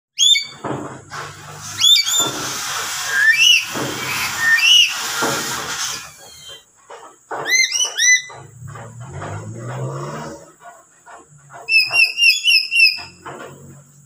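Lory (nuri) parrot giving loud, sharp screeching calls, each a quick rising-and-falling squawk. Single calls are spaced a second or so apart, then come in a quick run of about six near the end.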